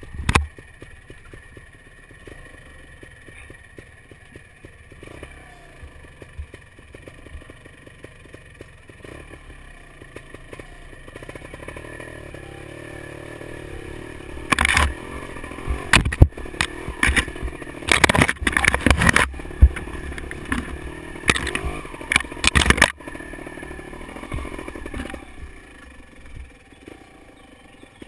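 Beta Alp 250 motorcycle engine running under load up a rough, muddy trail, getting louder through the middle. A thump comes right at the start, and for about eight seconds from halfway there is a series of loud knocks and clatter as the bike jolts over the ruts.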